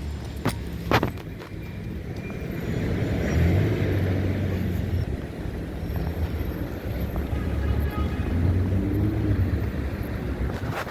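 Street traffic: cars driving by on a city road with a steady low rumble. One swells past about three to four seconds in and another around eight to nine seconds in.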